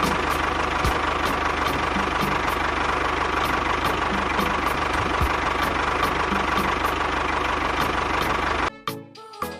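A small machine running steadily with a constant whine, stopping abruptly about a second before the end.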